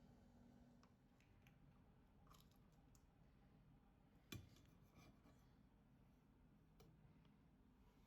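Near silence, with a few faint clicks and one sharper tap about four seconds in.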